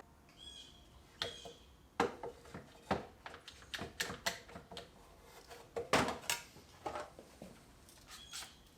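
A string of irregular knocks, taps and clatter, the loudest about two and six seconds in, with a few short high squeaks near the start and end.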